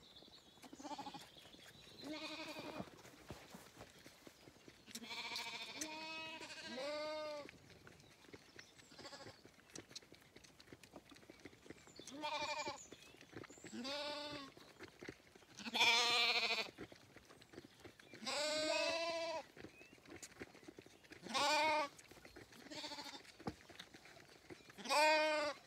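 Zwartbles lambs bleating for their milk at bottle-feeding: about ten separate quavering calls, each under a second long, some higher and some lower in pitch, spread through with short gaps.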